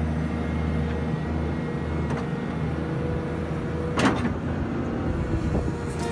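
Excavator engine running steadily while the bucket lifts and dumps soil, with a brief clatter about four seconds in as the bucket tips its load onto the spoil heap.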